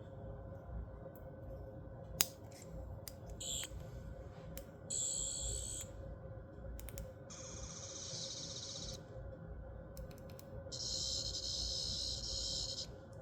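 Matt Smith sonic screwdriver toy playing its electronic sonic sound effect in four high warbling bursts of one to two seconds each, with sharp button clicks between them.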